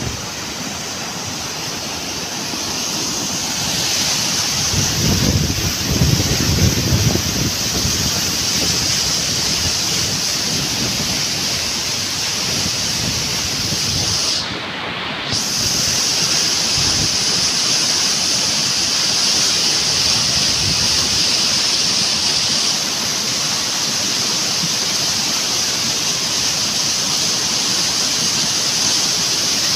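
Muddy floodwater from a flash flood rushing down a stony gully, a steady loud rush of water.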